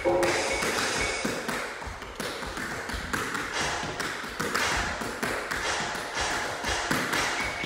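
Metal taps on tap shoes striking a hard studio floor in a quick, continuous run of tap steps.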